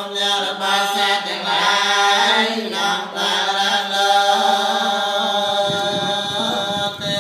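Khmer Buddhist monks chanting together in unison, a steady droning recitation on long held notes, with a low rumbling noise joining for the last second and a half.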